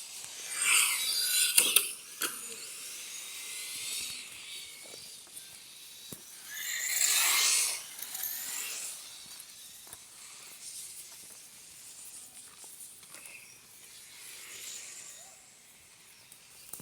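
Radio-controlled racing buggies passing at speed on the track: a high, whining motor note sweeps by about a second in and again, loudest, around seven seconds in. Between the passes there are quieter whirring and scattered clicks from cars further around the circuit.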